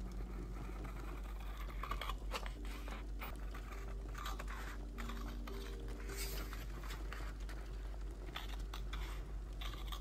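Paper being handled on a wooden desk: soft rustling and crinkling with scattered light clicks and taps.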